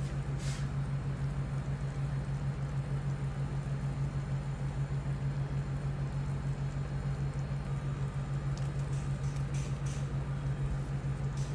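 A pot of chicken soup at a rolling boil under a steady low hum, with a few faint ticks about a second in and again near the end.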